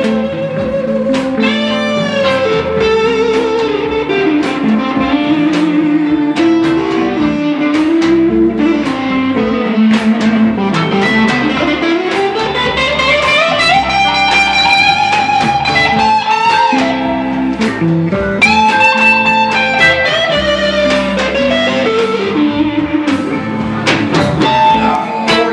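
Live electric blues band playing a slow blues ballad: a lead electric guitar plays a bending, singing solo line over a second electric guitar, bass and drums. About ten seconds in, the lead line climbs in one long rising glide and holds high.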